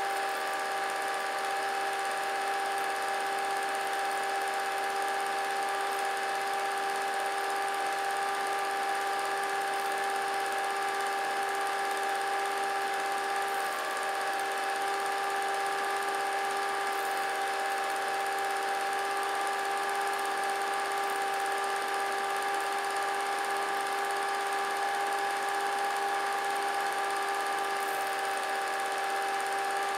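A steady electric whine from a small motor, several held tones stacked together at a constant level without any change.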